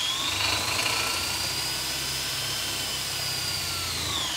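DeWalt DCD999 cordless hammer drill running flat out in high gear, driving a brake-rotor dyno: a steady high motor whine over a low hum. Near the end the pitch drops as the drill slows under the dyno brake's load.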